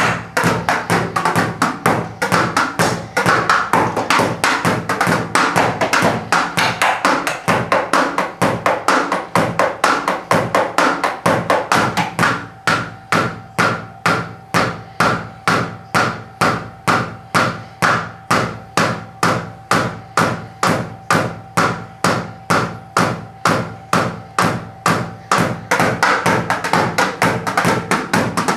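Drumsticks tapping and thudding on the mesh pads and rubber cymbal pads of an electronic drum kit, played in a steady rhythm with no audible music, since the backing track is heard only in headphones. From about twelve seconds in the playing thins to a sparser, even beat of about two strokes a second, then turns busier again near the end. The cooling fan of a laser light hums underneath.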